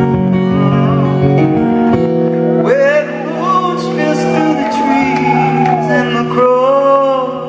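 Live rock band music: a male voice sings long, wavering held notes over sustained guitar chords.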